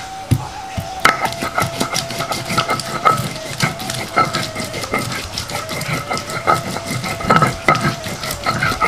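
Kitchen utensils clicking and scraping in many quick, irregular strokes over a steady tone, as spices are handled and prepared.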